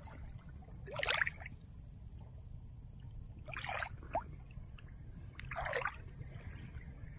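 Feet wading through shallow water, splashing about four times, over a steady high-pitched drone.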